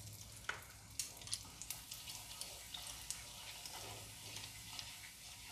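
Whole cumin seeds sizzling faintly in hot oil in a non-stick frying pan, a steady hiss with scattered crackles, as a spatula stirs them.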